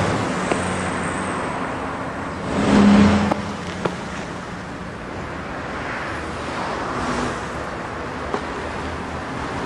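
Road traffic noise: a steady background of cars, with one vehicle passing more loudly about three seconds in.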